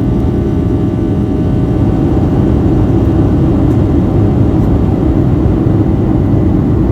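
Boeing 757-300 jet engines and airflow heard inside the passenger cabin: a loud, steady rumble with several steady whining engine tones over it, growing slightly louder about two seconds in.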